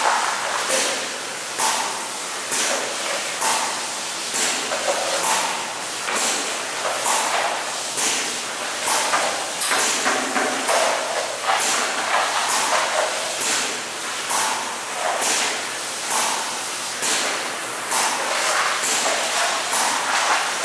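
Hose-fed spray gun applying resin to a fiberglass hatch mold, in short repeated bursts of spray about one a second as the gun sweeps back and forth.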